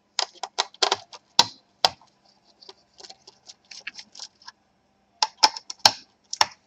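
Small screwdriver clicking and tapping on the screws that hold a laptop's copper heatpipe cooler as they are undone, an irregular run of small clicks with a few sharper taps.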